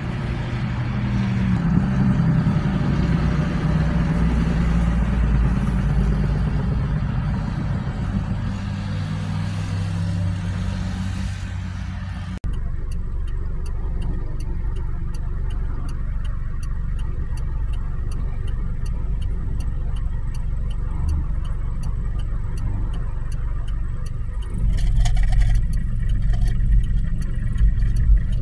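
Road traffic going by: engines and tyre noise, with an engine rising and falling in pitch in the first few seconds. After a sudden cut about twelve seconds in, a steady low engine rumble from vehicles stopped in traffic beside a semi-truck, with a faint rapid ticking and a louder swell near the end.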